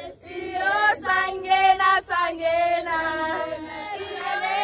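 A group of women and girls singing a traditional wedding song together, unaccompanied, with long held notes.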